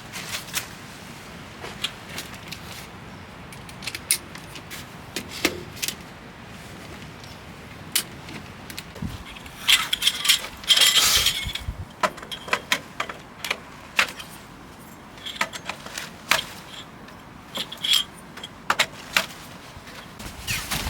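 Scattered light clicks and clinks of small objects being handled, with a short burst of rustling about ten seconds in.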